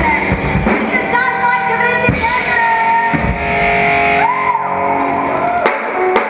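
Live band playing a song, with a woman singing over guitars, keyboard and drums. The low drum-heavy sound thins out near the end, leaving a few sharp hits.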